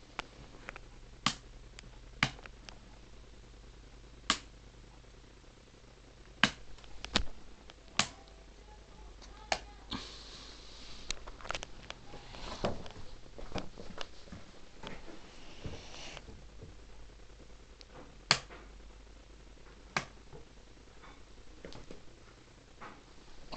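Argon glow starter of a fluorescent lamp circuit clicking irregularly, about a dozen sharp clicks, over a faint low steady hum. There are short stretches of hiss about ten seconds in and again a few seconds later.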